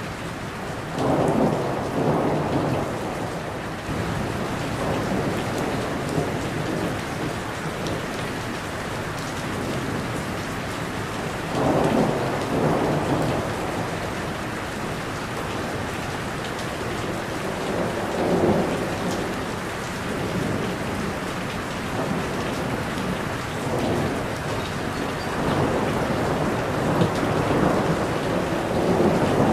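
Steady rain falling on tree foliage, with four low rolling rumbles of thunder swelling up over it at intervals, the first and second the loudest.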